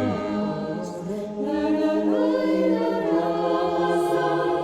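Mixed choir singing a cappella, several voice parts holding sustained chords that shift every second or so, without clear words.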